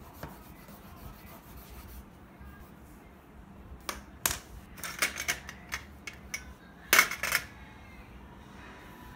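Crayons and a marker scratching and tapping on colouring-book paper over a tabletop: scattered short scratchy strokes from about four seconds in, with the loudest cluster about seven seconds in.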